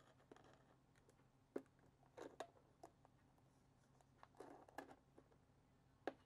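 Faint handling sounds from hands working on a cardboard firework cake box: scattered light clicks and taps, a few with a brief rustle, over a faint low hum.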